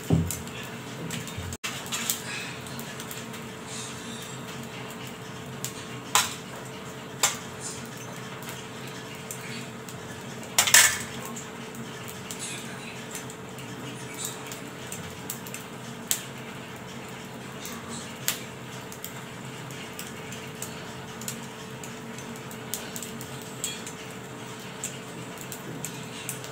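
Scattered clinks and taps of a steel spoon against a steel plate as paneer stuffing is scooped onto rolled-out paratha dough, the loudest about six and eleven seconds in. A steady faint hum runs underneath.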